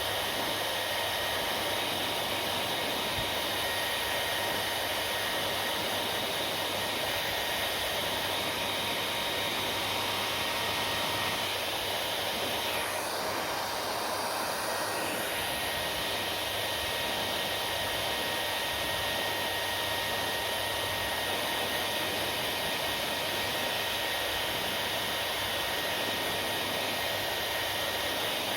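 Hair dryer running steadily: an even rush of air with a faint high motor whine. The sound of the air shifts briefly about halfway through, then settles again.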